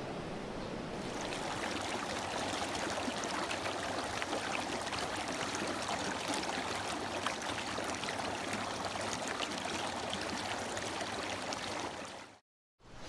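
Mountain valley stream flowing: a steady rush of water that cuts out briefly near the end.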